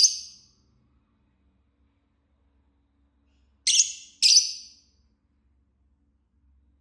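Fischer's lovebird giving three short, shrill calls: one at the start, then two in quick succession about three and a half seconds later.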